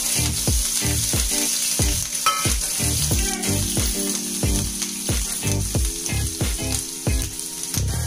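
Ginger and green chillies sizzling and frying in hot ghee with cumin and hing: a tadka (tempering) for dal, with a steady crackling hiss.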